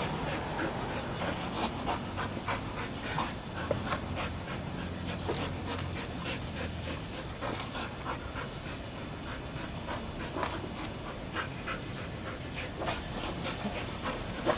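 Entlebucher Mountain Dog panting as it pushes a basketball along a concrete sidewalk, with many short taps and scuffs from the ball and its paws on the concrete.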